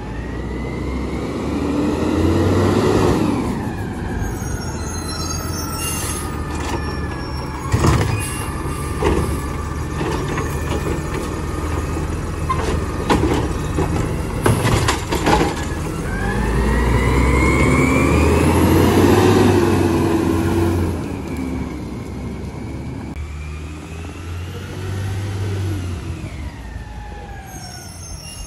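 Mack garbage truck's diesel engine revving up and down as its automated side-loader arm works, loudest in a long rev about two-thirds of the way through, with a run of clanks and bangs in the middle as a cart is lifted and dumped. The uploader likens the engine's sound to a Crane Carrier (CCC) truck.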